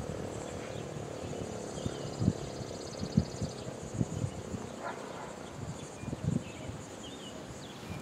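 Outdoor ambience with no siren sounding: an insect trilling steadily for the first three or four seconds, a few short bird chirps, and scattered low thumps.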